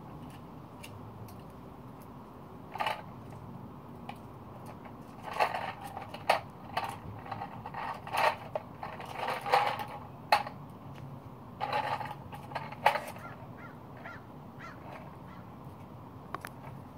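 A squirrel rummaging in a plastic toy cement mixer's drum: irregular clusters of clicks and rattles of plastic and seeds, over a steady low background hum.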